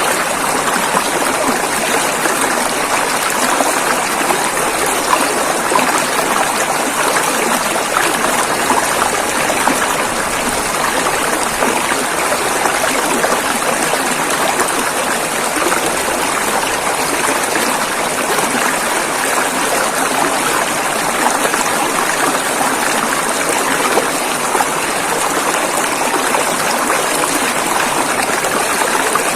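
A river flowing over rocks with a steady rush of water, unchanging throughout.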